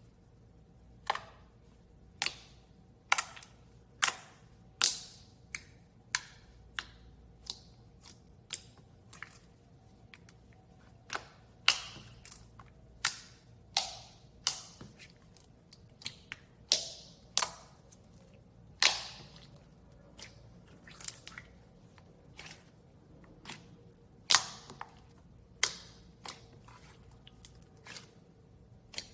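Slime being pressed and squeezed, giving sharp popping clicks at irregular intervals, about one a second.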